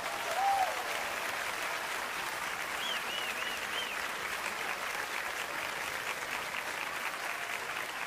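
Concert audience applauding steadily at the end of an orchestral and choral performance, with a few brief calls rising and falling in pitch over the clapping.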